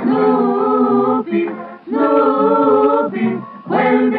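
Sung vocal music in a choir-like a cappella style: two long held notes of about a second each with short breaks between them, then shorter sung notes near the end.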